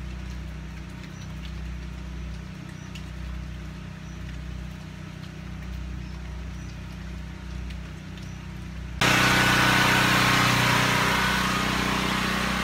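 A portable generator's engine running steadily: a low, fairly quiet hum at first, then much louder and closer from about nine seconds in.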